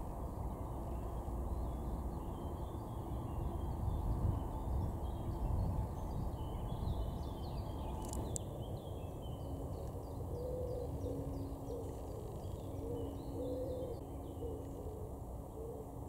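Birdsong in spring woodland: small birds chirping in short high phrases, and from about halfway a low call repeated over and over. A steady low rumble lies underneath, and a single sharp click sounds about halfway.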